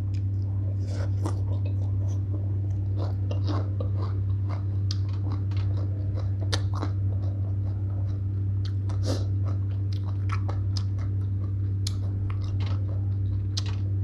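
Close-up chewing of spicy green papaya salad (som tam) with rice noodles: many short, wet crunches and mouth clicks, a few each second, over a steady low hum.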